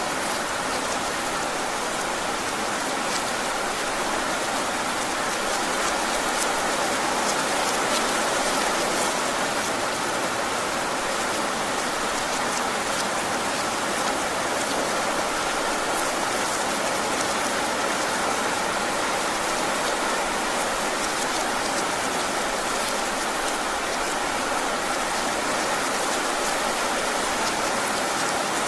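Heavy rain falling steadily: a dense, even hiss with many small drop hits scattered through it.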